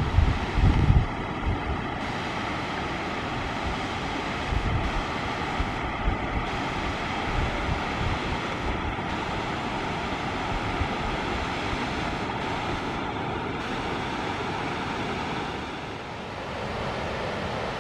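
Steady rush of water from a small rocky waterfall, with wind buffeting the microphone in the first second or two.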